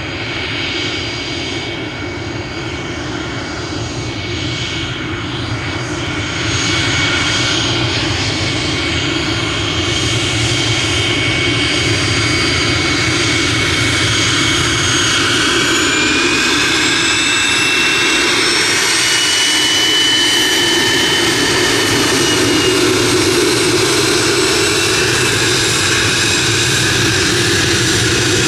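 Cirrus SF-50 Vision Jet's single turbofan engine running as the jet taxis: a steady rush under high whining tones. It grows louder about six seconds in and holds, and about fifteen seconds in one whine slides up in pitch.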